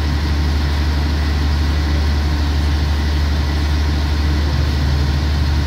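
A standing diesel passenger train idling: a steady, unchanging low hum.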